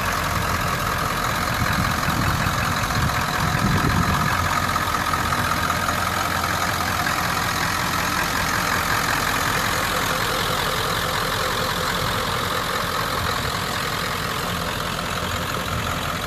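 Ford 7.3-litre Powerstroke V8 turbo diesel idling steadily, swelling a little in loudness about three to four seconds in.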